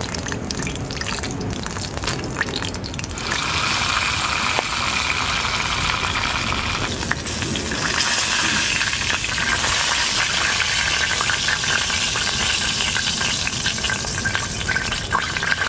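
Meat sizzling as it roasts over a campfire, with crackling pops from the fire; the sizzle gets louder and steadier about three seconds in.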